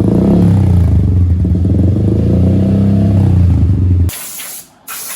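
Suzuki Gixxer single-cylinder motorcycle engine running and being revved, its pitch rising and falling. About four seconds in it cuts off abruptly to a loud spray hissing in short bursts.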